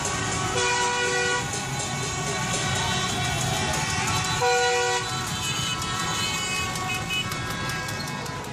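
Celebrating crowd in the street: many horns tooting over a dense traffic-and-crowd din, with two longer horn blasts about half a second and four and a half seconds in, fading out near the end.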